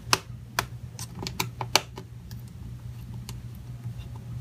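Sharp plastic clicks and taps on the keys of a ThinkPad T470s laptop keyboard as its retaining screws are taken out, several quick irregular clicks in the first two seconds and only a few faint ticks after.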